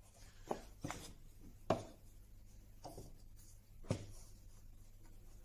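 Wooden blocks and bar cramps handled on a workbench: about five short knocks and clunks over four seconds, as blocks are set down on a glued panel to weight it.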